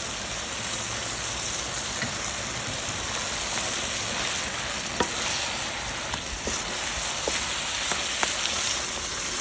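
Chicken karahi sizzling in hot oil in a karahi (wok) over a campfire, with the spices just added, as a steady frying hiss. A few sharp clicks sound now and then, the clearest about halfway through.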